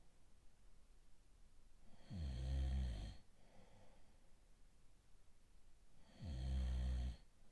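A man snoring: two snores, each about a second long and some four seconds apart, with a fainter breath sound just after the first.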